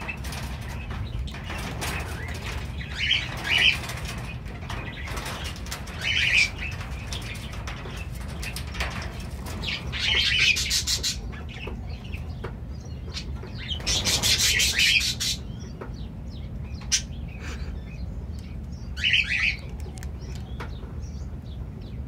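Cockatiels chirping: about half a dozen short, high calls spread through, two of them longer, over scattered light clicks and a steady low rumble.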